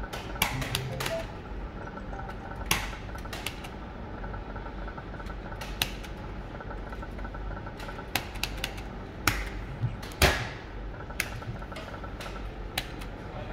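Sharp, irregular clicks of slot-machine buttons being pressed, the loudest about ten seconds in, over the steady hum of gaming machines and a faint repeating electronic tone.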